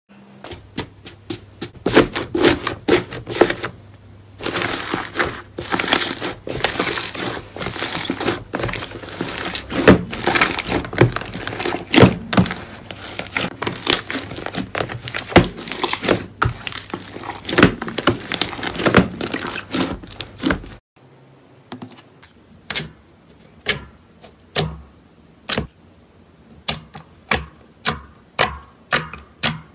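Slime being squeezed and poked, giving sharp popping clicks and dense crackling. After a sudden cut about two-thirds of the way in, a quieter run of single pops follows, one or two a second.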